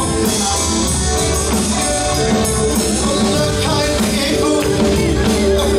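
Live band music: a man singing into a microphone over electric bass, electric guitar and drum kit.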